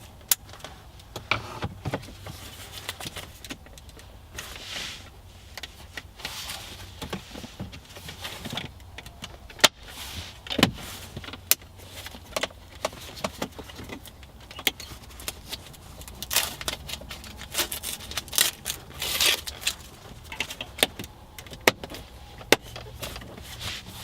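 Plastic center-console trim of a B9 Audi A4 being handled and refitted: many scattered sharp clicks and short rustling rattles as panels and an electrical connector are pushed into place.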